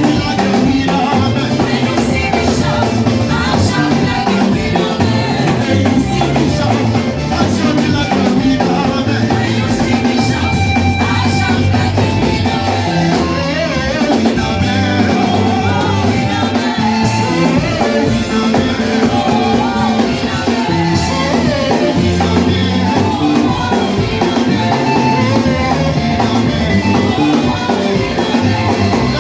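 Live band playing upbeat, danceable worship music with drum kit, bass and voices singing.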